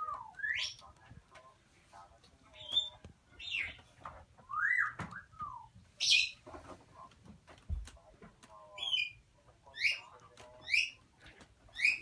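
African grey parrot chicks calling: a string of about ten short, rising calls, roughly one a second.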